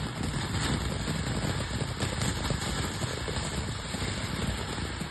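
Lit backyard firework fountain spraying sparks: a steady rushing hiss and rumble with faint crackling.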